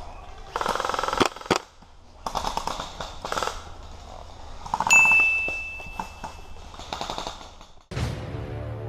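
Airsoft guns firing in rapid bursts of clicks, with a steady high beep about five seconds in. Music starts near the end.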